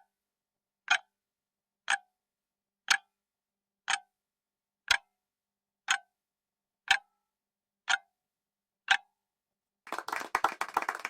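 Countdown-timer clock sound effect ticking once a second, about ten ticks. Near the end a burst of clapping comes in as the time runs out.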